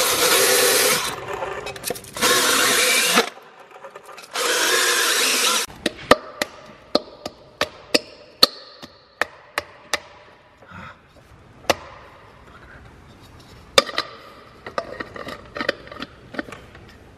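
An impact wrench runs in three bursts of about a second each on the truck wheel's lug nuts. Then come a string of sharp metallic clicks and knocks as a polished hub cap is worked and pressed onto the hub, a snug fit.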